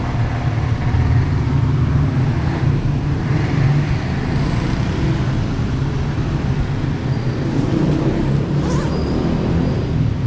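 Steady low rumble of a motor vehicle running, with traffic-like road noise.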